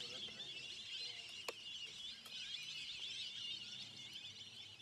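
Large flock of birds calling all at once: a dense, continuous chatter of many overlapping high calls and whistles, with one sharp click about a second and a half in.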